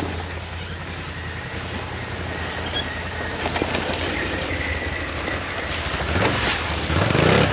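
Sport ATV engine running under load on a steep, muddy off-road climb, a steady low rumble that grows louder and rougher over the last second or two as the rider gives it throttle.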